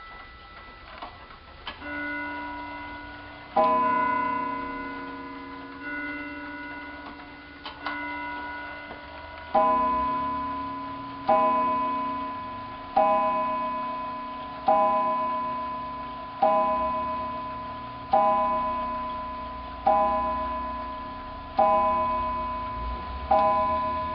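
Seth Thomas tambour mantel clock striking the hour on its cathedral gong: a single ringing stroke about four seconds in, then nine strokes about 1.7 seconds apart from near ten seconds in, each fading slowly. Nine strokes while the hands read 11 o'clock: the striking is two hours out of synchronization with the hands.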